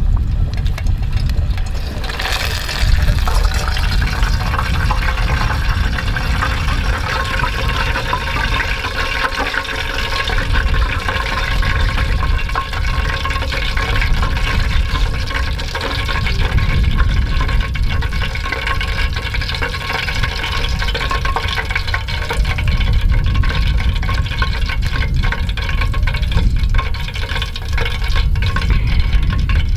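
Hot oil sizzling and crackling in a deep-frying pot as breaded food fries, a steady dense crackle that swells about two and a half seconds in, over a steady low rumble.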